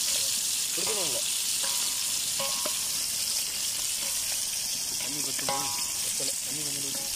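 Chicken leg pieces deep-frying in hot oil in a wide pan, a steady sizzling hiss throughout.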